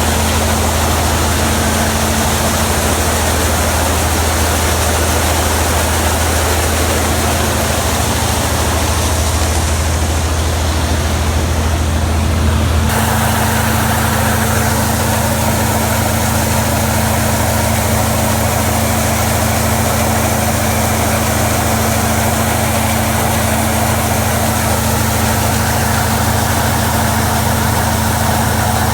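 Diesel engine of heavy harvest machinery running steadily with a constant low hum. About halfway through, the tone changes abruptly to a slightly different steady running sound.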